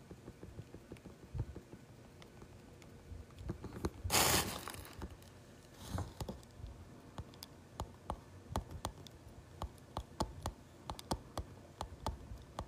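Scattered small clicks and taps, with a short burst of rustling noise about four seconds in and a weaker one at about six seconds.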